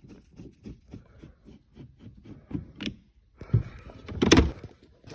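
Small clicks and knocks of hands working at the car's interior wiring and trim, with a louder clatter about four seconds in.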